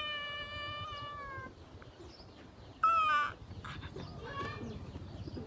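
A woman's long, high cry of mock pain while a baby macaque bites her arm, held and then falling away about a second and a half in. A short rising cry follows about three seconds in, then a little laughter.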